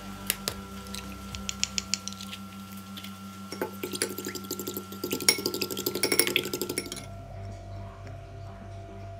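A fork whisking beaten eggs in a bowl: a rapid run of clinks of metal against the bowl for about three seconds in the middle, stopping sharply, after a few sharp taps near the start as an egg is cracked on the fork. Steady background music plays under it.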